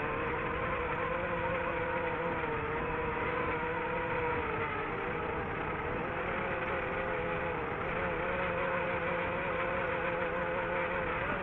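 DJI FPV drone's motors and propellers whirring steadily, their pitch wavering slightly up and down with the throttle, over a rush of airflow noise.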